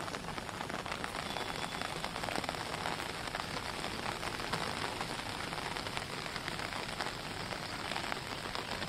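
Heavy rain falling steadily: an even hiss made of many fine drop hits.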